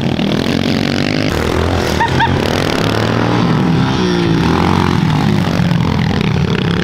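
Pit bike engines revving up and down as they are ridden around a dirt track, the pitch climbing and dropping with the throttle. Two short high chirps sound about two seconds in.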